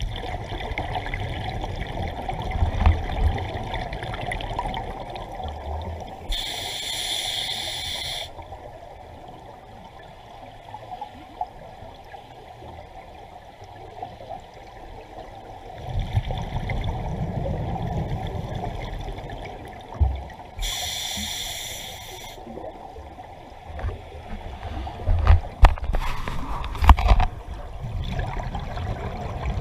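Scuba breathing underwater: a diver's regulator gives two short high hisses, and exhaled bubbles rumble and gurgle in between. A few sharp knocks come near the end.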